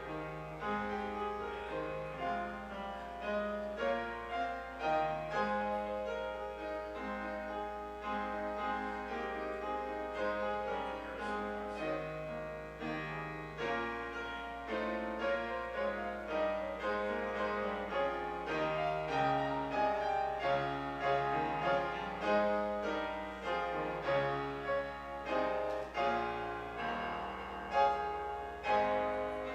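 Solo keyboard instrumental music, a slow classical-style piece of held chords and melody notes that runs on without a break.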